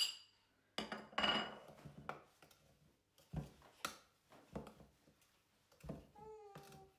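Metal spoon clinking and knocking against a plastic jug as dry baking ingredients (flour, baking powder, vanilla sugar) are spooned in and stirred by hand. There is a clink at the start, a soft rush about a second in, then a handful of separate knocks. A short high-pitched, voice-like whine comes near the end.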